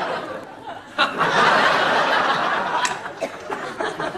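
Studio audience laughing. The laughter dies down, then bursts out again about a second in and slowly fades.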